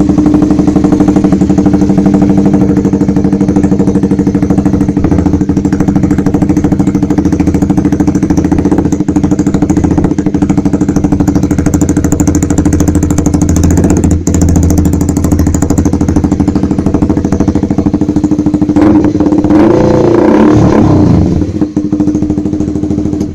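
Honda CBR150R single-cylinder engine idling loud and steady through a Proliner TR1 short full-system aftermarket exhaust. Near the end it is revved briefly, rising and falling, then it cuts off suddenly.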